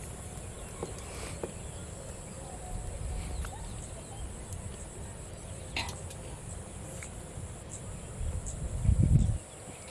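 Rural outdoor ambience: a steady low rumble, a faint steady high insect hiss, and scattered faint clicks and distant bird calls, with a short, louder low rumble about nine seconds in.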